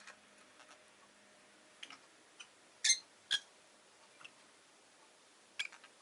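Rosy-faced lovebird giving a handful of short, sharp chirps, spaced irregularly, the loudest about three seconds in and another near the end, with a small tap among them.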